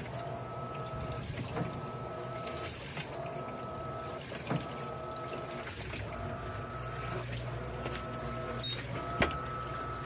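Electrolux LAI17 top-load washing machine agitating a heavy load in water with its turbo setting off: the motor whine cuts out and starts again about every one and a half seconds as the agitator reverses, over water sloshing.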